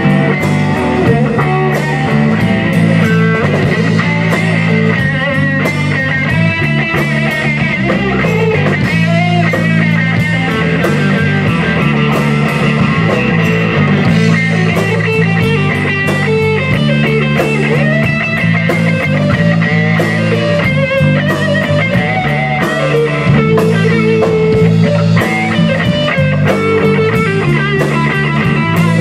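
Rock band playing live without vocals: electric guitar, electric bass and drum kit, with a steady repeating bass line under the guitar.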